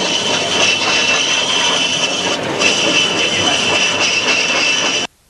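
VB36 bowl-turning lathe at work, a tool cutting into a spinning wood blank: a steady, loud, noisy sound that cuts off suddenly about five seconds in.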